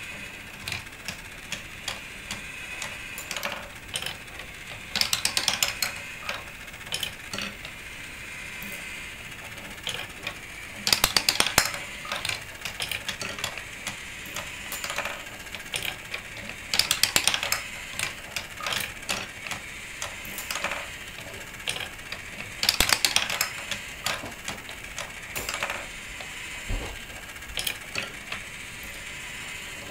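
Wooden marble machine running: marbles click and rattle along the wooden tracks and lift, over a steady whir. A burst of rapid clicking comes about every six seconds.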